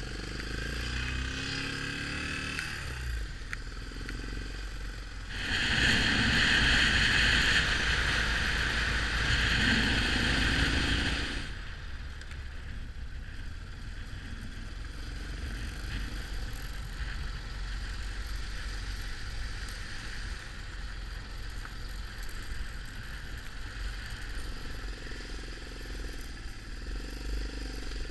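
Yamaha XT 600 single-cylinder motorcycle engine running while riding, with rising and falling engine pitch near the start and the end. About five seconds in, a louder hissing noise comes in and lasts some six seconds.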